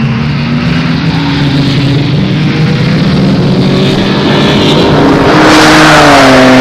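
Sports coupe's engine at full throttle on a flyby. The engine pitch climbs steadily as the car approaches, and the sound grows louder until the car passes close near the end, where the pitch dips slightly as it goes by.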